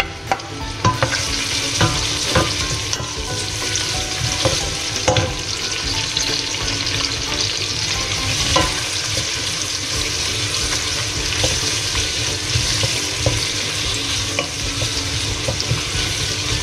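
Garlic cloves and chopped onion sizzling gently in olive oil in a stainless steel pot, stirred with a wooden spoon that clicks now and then against the pot. The sizzle comes up about a second in, as the garlic is tipped in; the oil has only just been heated so they cook slowly without burning.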